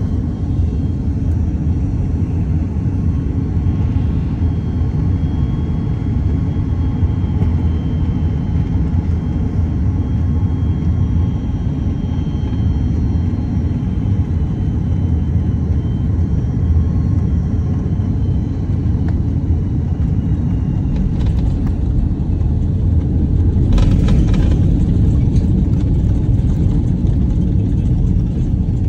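Steady low rumble of an Airbus A330's engines and airflow heard inside the cabin during the landing, with a faint high steady whine over it. About three-quarters of the way through comes a brief louder rush of noise.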